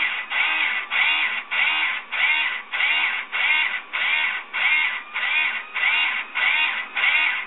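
Motor whine from a 3D printer rig, repeating in short pulses a little under twice a second. Each pulse rises and falls in pitch as the motor speeds up and slows down.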